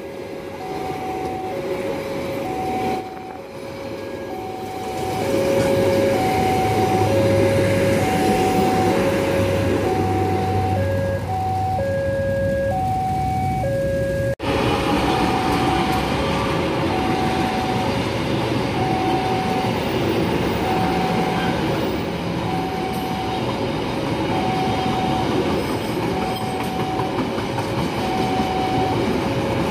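Level crossing warning alarm sounding an alternating high-low two-tone chime, about one pair a second. Under it, a passenger train passing on the double track rumbles and clatters over the rails. There is a sudden break about halfway through, after which the chime and the train noise carry on.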